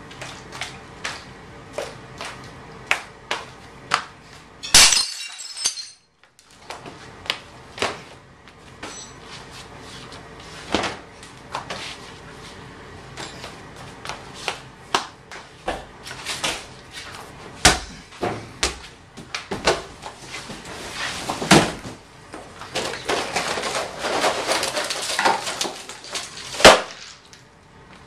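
A string of sharp knocks and clatters, like objects hitting a hard floor. About five seconds in comes a crash with a glassy, ringing tail, and near the end a denser stretch of clattering ends in a loud bang.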